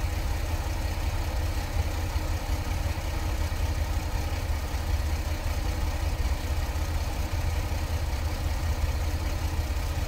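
Chevrolet Astro's 4.3-litre V6 idling steadily, heard from inside the cabin with the engine cover off. This is just after a new fuel-injector spider assembly was fitted to cure a misfire; the owner no longer feels the old miss but still feels there may be something there.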